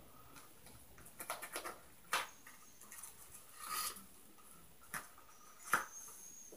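Scattered sharp clicks and knocks over a quiet room background: a quick run of taps about a second in, single sharp knocks near two, five and six seconds, and a short rustling burst near four seconds.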